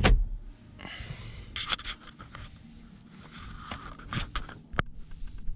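Porsche Cayenne glove box lid shutting with a sharp knock right at the start. Then light scraping, rubbing and scattered clicks from hands and the camera moving about the car's interior trim, with one sharp click near the end.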